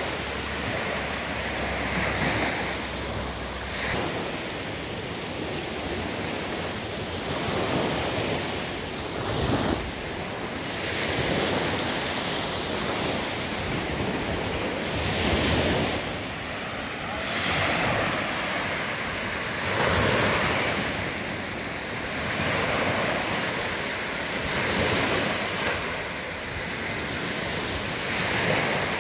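Small sea waves breaking and washing up on a sandy shore, the hiss of the surf swelling and fading every few seconds as each wave comes in.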